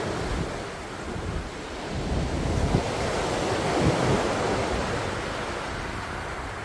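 Rough sea waves breaking on a shore: a wave builds, crashes about four seconds in, then washes out. Wind buffets the microphone with low rumbling gusts, mostly in the first few seconds.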